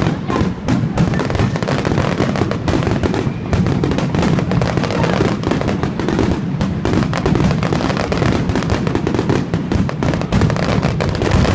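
A fireworks barrage: a dense, continuous stream of rapid bangs and crackles with no break.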